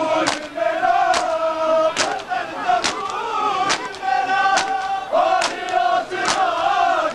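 A crowd of men chanting a mourning chant in unison while beating their bare chests in matam, sharp hand slaps in step a little more than once a second.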